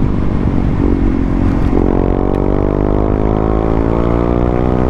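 KTM Duke 390's single-cylinder engine running through an aftermarket barrel exhaust while the bike is under way. About two seconds in the note steps up and then climbs steadily as the bike accelerates.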